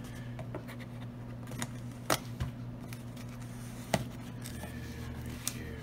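Knife blade slitting the seam between the flaps of a cardboard shipping box, with a few sharp clicks, the loudest about two and four seconds in.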